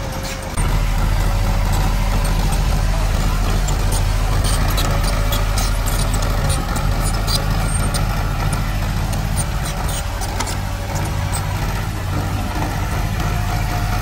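Diesel engine of heavy earthmoving machinery running steadily under load, stepping up in level about half a second in, with scattered short clicks and clanks.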